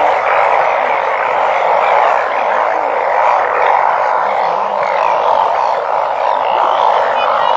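A dense chorus of many frogs croaking together, a steady mass of sound with no pauses.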